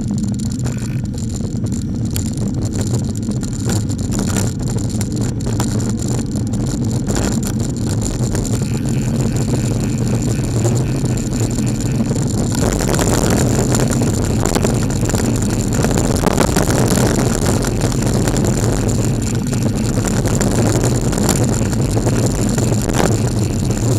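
Diesel engine of a Seddon Atkinson lorry running steadily close behind a bicycle, with a steady low drone. Wind and road noise grow louder from about halfway through.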